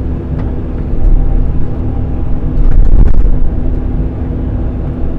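Kobelco SK85 excavator engine running steadily under load while its bucket cuts out a sidewalk, growing louder about a second in and again around three seconds in, with a few sharp knocks.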